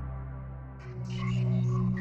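Intro music. A low droning chord fades out, and about a second in a new piece starts with a held low note under short, higher notes stepping up and down.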